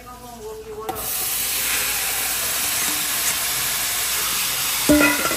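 Pigeon peas tipped into hot caramelized sugar in a pot, setting off a sudden loud, steady sizzling hiss about a second in. Near the end there is one sharp metal clank with a short ring.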